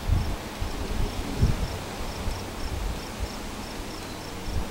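Insects chirping in a regular high pulse, two or three chirps a second, with a few dull low thumps in the first second and a half.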